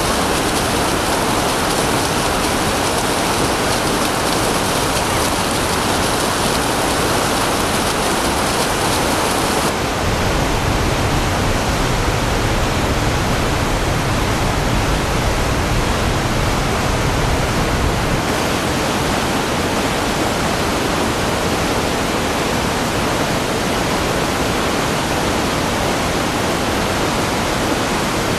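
Waterfall: steady rushing of falling water. Its tone changes abruptly about ten seconds in, turning deeper, and changes again about eight seconds later.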